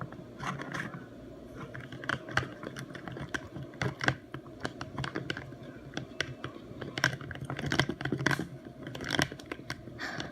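A spoon stirring a mixture of vegetable oil and nail polish in a container, with many irregular clicks and scrapes against the container.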